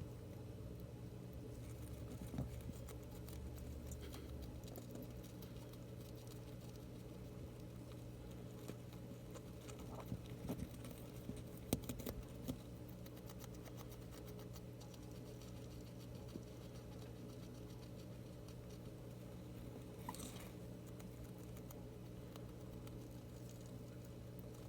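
Hamster eating bok choy: faint scattered nibbling clicks and rustles, busiest around ten to thirteen seconds in, over a steady low hum.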